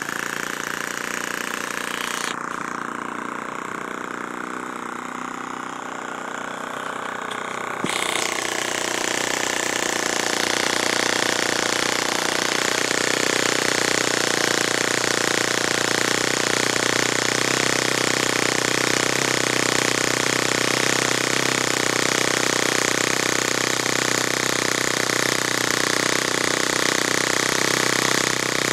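O.S. FS-20 single-cylinder four-stroke glow engine on a model airplane running on a test stand run, smooth and even, like new. It gets suddenly louder about eight seconds in and runs steadily from there.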